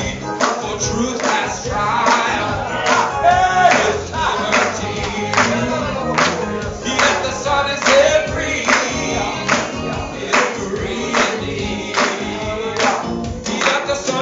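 Gospel singing by a church congregation, with a steady beat underneath.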